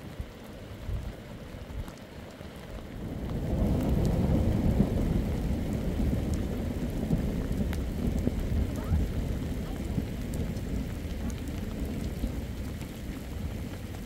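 Steady rain falling, with a low rumble of thunder that builds about three and a half seconds in, rolls on for several seconds and slowly fades.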